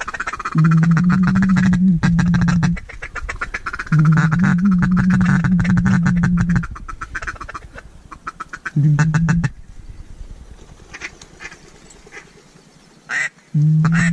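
Duck call blown close by in loud runs of rapid, reedy quacking and chatter, to call in a passing flock of ducks. There are three long runs and a short one near the end, with pauses between.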